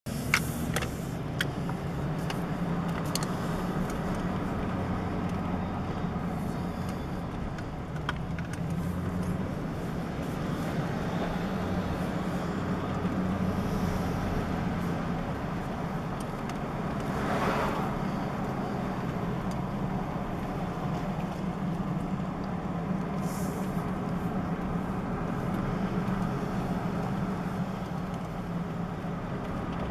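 Road vehicle driving slowly on a paved street, heard from inside the cabin: a steady low engine and tyre hum, with a few sharp clicks in the first several seconds and a brief louder whoosh about halfway through.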